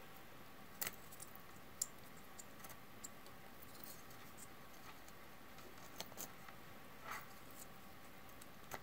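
Faint, scattered clicks and light scrapes of hard 3D-printed plastic parts and wires being handled as the wires are fed through the body, a handful of clicks over faint room hiss.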